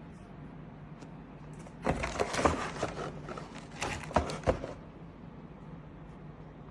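A burst of handling noise, a quick series of clicks and plastic rattles for about three seconds, starting about two seconds in, over a steady low hum.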